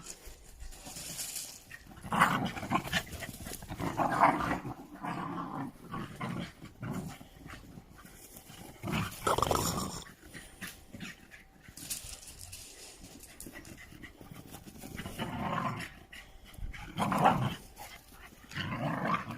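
Dogs panting and growling in irregular bursts, a few seconds apart, as they play.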